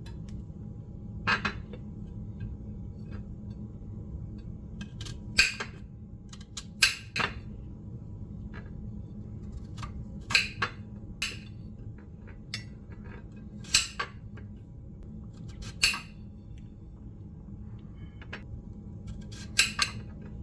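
Knife cutting cucumber pieces on a cutting board: about a dozen separate sharp knocks, spaced irregularly a second or a few seconds apart, over a steady low background hum.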